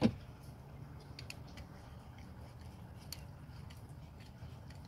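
Faint, irregular clicking of a worm-gear hose clamp being tightened with a nut driver on a cooling hose, over a faint low hum. There is a brief low thud at the very start.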